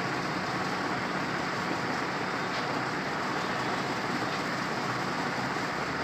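Atomberg BLDC fan running with a steady, even noise, the noise that the owner calls severe.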